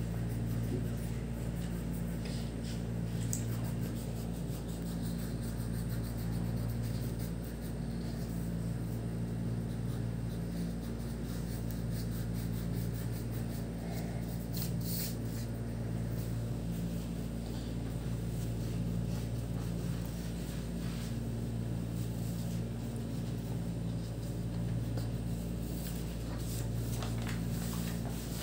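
Steady low mechanical hum of a room appliance such as an electric fan, unchanging throughout, with a few faint scratches of a wax crayon on paper.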